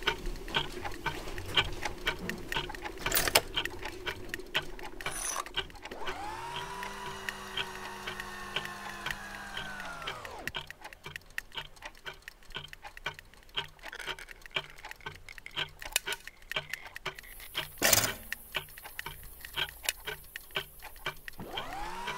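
Many clocks ticking at once in overlapping rhythms. A motor whirs up to speed about six seconds in, holds, and winds down about four seconds later, then starts up again at the very end, with single loud knocks about three seconds in and near the end, and a high hiss over the last few seconds.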